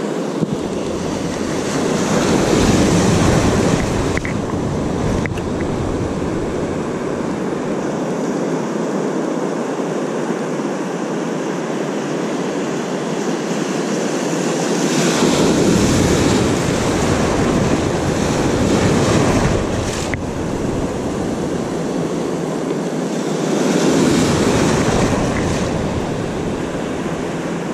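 Ocean surf breaking and washing through the shallows, swelling louder three times as waves come in, with wind buffeting the microphone.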